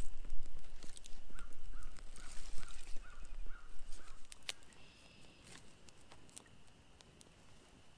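Dry sticks being laid and broken onto a campfire lay, with sharp snaps and crackles and one loud snap about halfway through, over a low rumble that stops there. Meanwhile a bird calls a quick run of about seven short notes. Then it is quiet, with only faint scattered ticks from the small fire.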